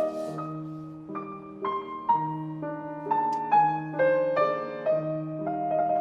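Background music: a piano melody of struck notes over held lower chords, at a gentle pace.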